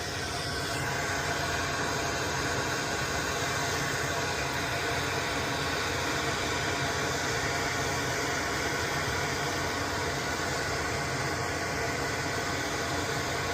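A fan running steadily, giving an even, constant hiss of moving air.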